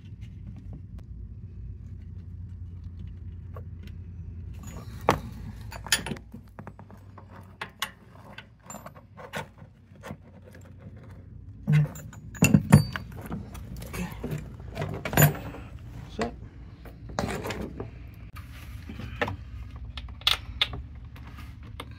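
Irregular metallic clicks and clinks of battery cables with ring terminals and their bolts being handled and fitted to an engine's starter and a battery's terminals, busiest and loudest in the middle. A low steady hum runs underneath.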